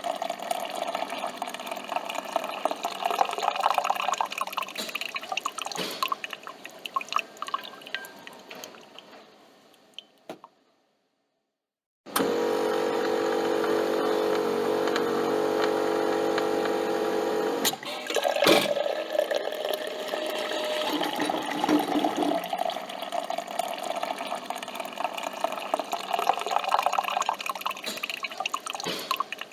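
Coffee machine: coffee dripping and streaming into a cup, fading away after about nine seconds. After a short silence, a steady machine hum runs for about five seconds and stops abruptly. A sharp click follows, then the dripping and streaming of coffee resumes.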